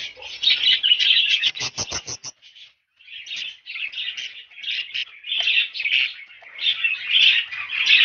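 Budgerigars chirping and chattering in a dense, continuous high twitter, with a quick run of clicks a little under two seconds in. The chatter breaks off for a moment just after two seconds and then resumes.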